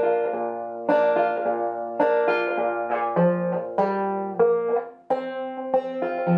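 Five-string banjo played in clawhammer style, tuned to double C lowered a whole step (F-Bb-F-Bb-C): a run of plucked notes struck one after another and left to ring, mostly on the second fret.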